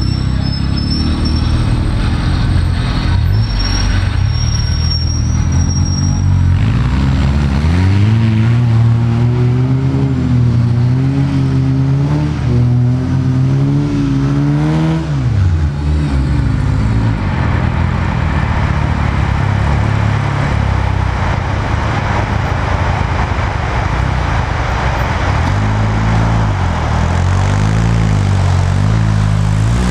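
A sporting trials car's engine revving unevenly under load, its pitch rising and falling, then dropping away about halfway through. A steady rushing noise follows, and the engine is heard again near the end.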